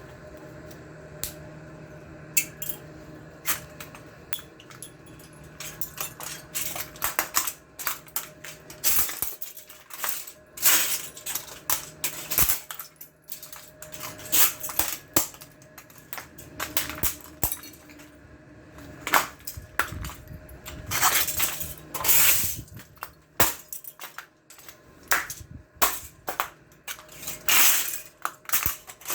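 Brittle plastic box fan grill being broken apart: many sharp cracks and snaps at an irregular pace, with shards clattering onto a hard floor. The cracking starts about six seconds in and comes thick and fast after that.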